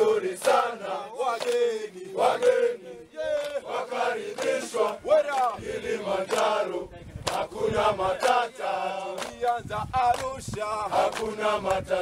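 A large group of men singing together in a chant-like song, with hand clapping.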